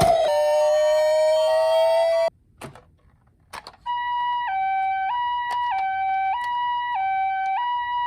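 Toy ambulance minicar's electronic siren: a siren tone gliding slowly upward cuts off about two seconds in, a few clicks follow in a short quiet gap, and then the two-tone hi-lo "pi-po" Japanese ambulance siren starts about four seconds in and keeps alternating evenly.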